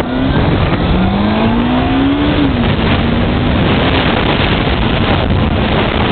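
Motorcycle engine accelerating: its pitch rises for about a second and a half, then drops and levels off, over a loud, steady rush of noise.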